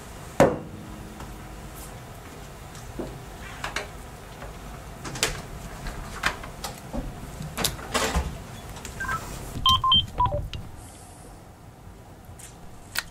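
Small clicks and taps from a screwdriver and handled metal parts, with one sharper click about half a second in. About nine to ten seconds in, a short run of electronic beeps at several pitches, like keypad tones.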